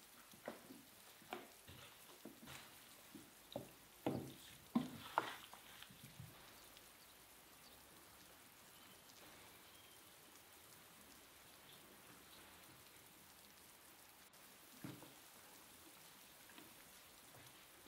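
Raw seasoned chicken pieces handled in a metal baking tray: a string of soft wet slaps and light knocks over the first six seconds. Then faint steady rain falling on paving, with a soft knock near the end.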